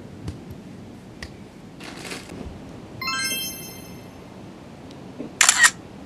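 Edited-in sound effects: a short swish about two seconds in, a bright glittering chime about three seconds in, and near the end a loud, sharp double click like a camera shutter.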